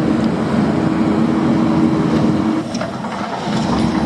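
Heavy construction machine's engine running with a steady hum, with a few faint clicks and knocks on top; part of its note drops away a little past halfway.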